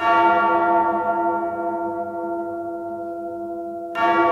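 A bell tolling twice, at the start and again about four seconds later, each stroke ringing on and slowly fading, as the opening of a music track.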